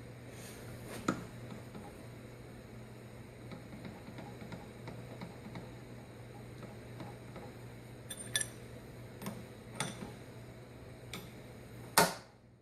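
A handful of light metallic clicks and taps, spread out, from an end mill and collet being handled and fitted in a milling machine's spindle, over a steady low hum. A sharper, louder knock comes near the end.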